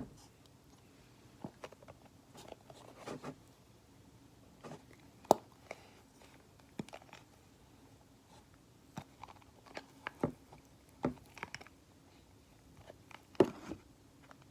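Scattered small clicks and taps from handling a glue bottle and mixing bowl while pouring glue for slime, the sharpest about five seconds in and near the end, over a faint steady low hum.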